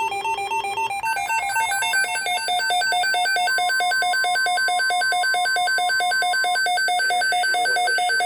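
Electronic weather alert tone: a rapid, steady run of beeps, about five a second, alternating between two pitches, sounding ahead of a tornado watch message. A different tone pattern gives way to it about a second in.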